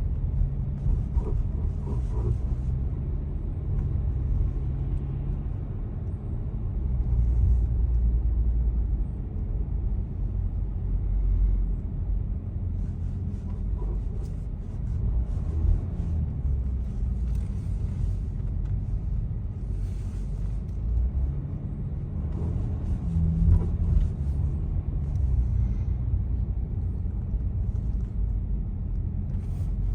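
Audi A6 allroad driving over speed bumps: a steady low rumble of the car in motion, with a few faint, short knocks scattered through it. These knocks are the noise the car makes on speed bumps.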